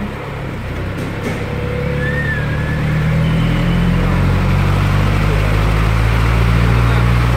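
A motor vehicle engine runs with a low steady rumble that grows louder about three seconds in.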